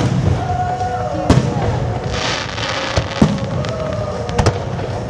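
Aerial firework shells bursting overhead: several sharp bangs, a pair close together near the middle and another pair near the end, with a crackling hiss of sparks around the middle. Music plays underneath.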